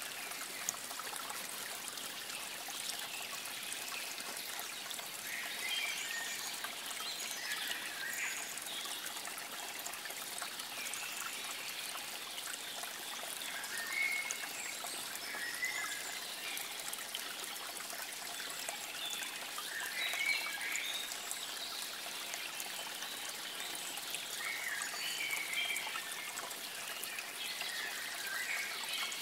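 Steady trickle of running water, with small birds chirping now and then.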